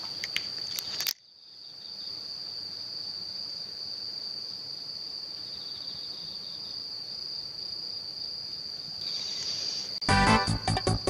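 Insects trilling: a single steady, high-pitched tone that runs on unbroken after a sudden cut about a second in. About ten seconds in, a loud, rhythmic pulsing sound comes in over it.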